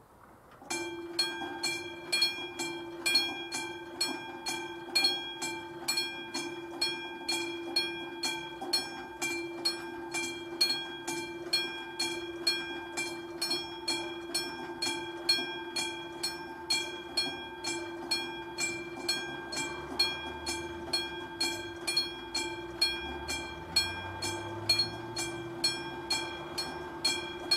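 Level-crossing warning bell of a classic mechanical type starts about a second in and rings steadily at about two strokes a second, each stroke ringing on between strikes. This is the sign that the crossing has been activated for an approaching train.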